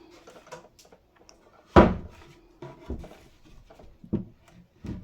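Cabinet door being swung shut on its freshly re-attached hinge, closing with one sharp clack about two seconds in, followed by a few lighter knocks.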